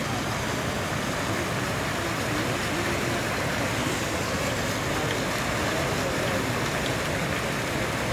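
Steady rushing hiss of many fountain jets spraying up and splashing back into the water.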